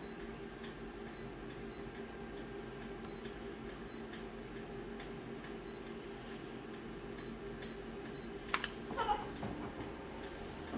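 Office colour photocopier humming steadily while its touch-screen keypad gives short high beeps as the zoom value is entered. Near the end the Start key is pressed with a click and the scanner starts its scan with a brief whirring sweep.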